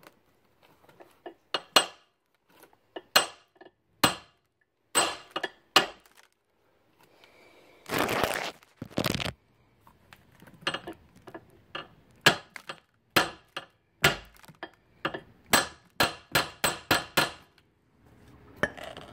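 Hammer striking a seized steel pin in a trailer hitch: metal-on-metal clanks at uneven intervals that come faster, two or three a second, in the second half. The pin is not budging. A hiss of about a second and a half comes near the middle.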